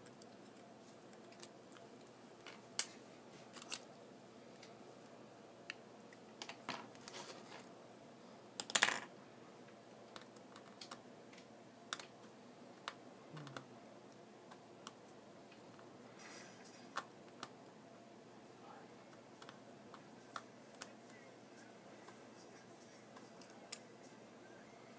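Faint, scattered clicks and taps of small tools and parts on an iPhone 4's insides while the logic board is being freed, with a short louder rattle about nine seconds in.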